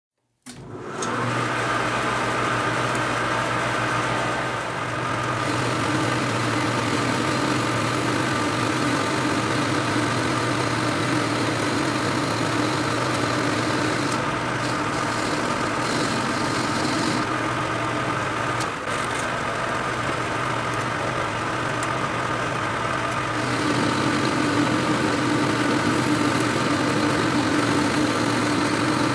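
Metal lathe running, its spindle turning a metal workpiece against a cutting tool: a steady mechanical hum with several steady tones, shifting in tone a few times as the cut goes on.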